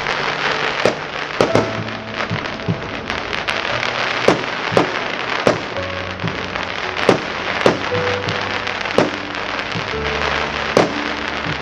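Fireworks going off: a continuous crackle with sharp bangs about once a second.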